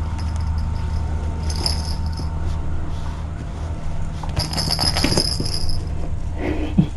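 A cat toy's small bell jingling, briefly about a second and a half in and again for over a second near the middle, over a steady low rumble.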